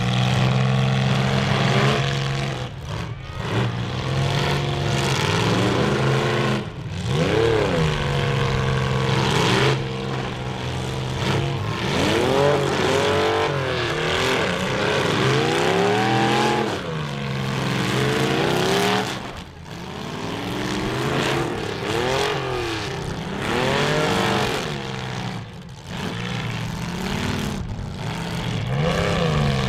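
Engines of several demolition derby cars revving up and down again and again over a steady low engine drone.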